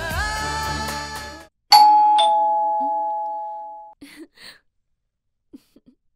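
Background music stops abruptly, and then an electronic two-tone ding-dong doorbell rings once. The second note is lower than the first, and the chime dies away over about two seconds. A few faint soft sounds follow it.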